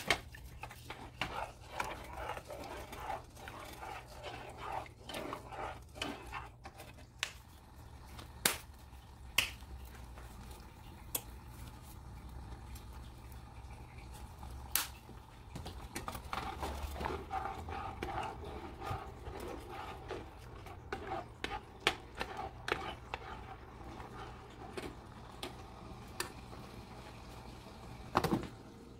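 Metal spoon stirring rice and water in a nonstick saucepan, with scattered sharp clinks of the spoon against the pot. Partway through, a seasoning blend is shaken in from a plastic shaker jar.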